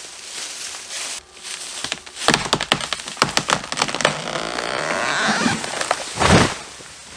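Wood cracking and splintering: a quiet start, then a dense run of irregular sharp cracks from a little after two seconds, ending in a heavy low thud about six seconds in.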